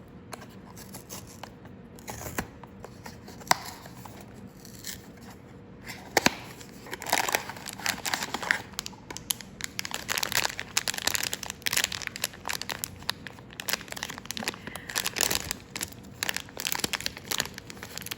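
A Pop Mart blind box being opened and its figure unwrapped: a few sharp clicks and taps of handling at first, then steady crinkling and tearing of the packaging from about six seconds in.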